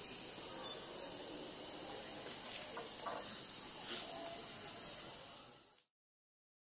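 Steady high-pitched drone of rainforest insects, with a few faint clicks beneath it; it fades out to silence near the end.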